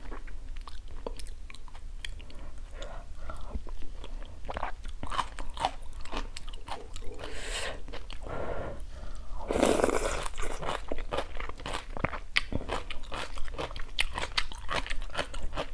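Close-miked eating: wet chewing with many small clicks and lip smacks as spoonfuls of soup and food are taken, and one longer, louder slurp about ten seconds in.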